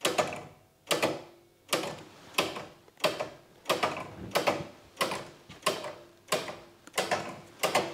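Synchronome electromechanical bell sequencer stepping at a sped-up rate: a sharp mechanical click about every two-thirds of a second, many of them doubled, each with a short ringing decay.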